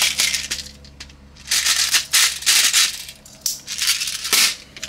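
A metal gas-blowback magazine rattles and scrapes in repeated short bursts as it is worked against an airsoft pistol's magwell, with a sharp click near the end. The magazine will not seat because its 4.3 base plate clashes with the magwell.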